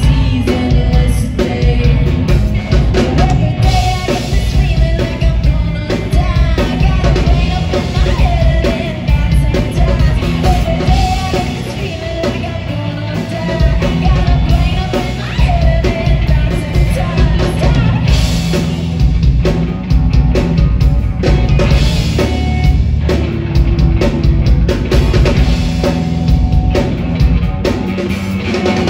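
Live rock band playing: a woman singing over electric guitar, electric bass and a drum kit.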